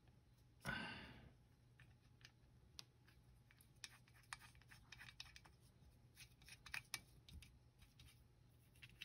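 Faint scratching and scattered light clicks of a screwdriver working screws out of an outboard motor block's manifold plate, with one louder brief scrape about a second in.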